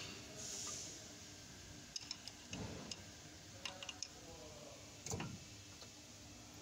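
A metal rod tapping and scraping against the gears inside an open rear differential, a few scattered light metallic clicks and ticks starting about two seconds in.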